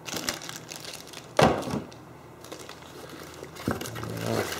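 Plastic packaging crinkling and a fabric tool bag rustling as items are handled and pulled out of the bag, with a louder rustle about a second and a half in.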